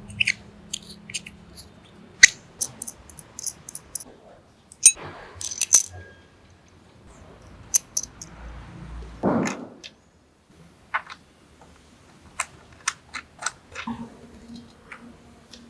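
A series of light, sharp clicks and clinks of small hard objects being handled, irregular and scattered, with a short brushing sound about nine seconds in.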